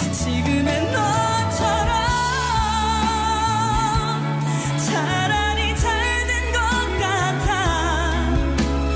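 A woman singing a Korean pop ballad live with band accompaniment, her long held notes wavering with vibrato over a steady bass.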